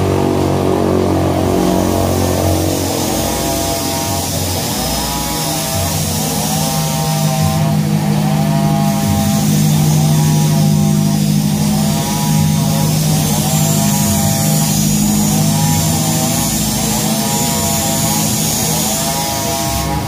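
A small engine running, its pitch swelling and falling back about every second and a half over a steady low drone.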